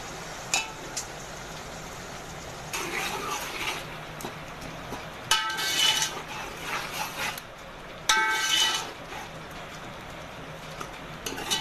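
A metal ladle stirring sliced onions, tomatoes and green chillies in oil in a steel pot, scraping the pot and ringing against its side with clinks about five and eight seconds in.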